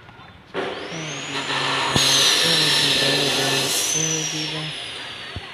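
A motor vehicle passing. It swells in about half a second in, is loudest around two to four seconds, then fades, with a low tone moving in short held steps over it.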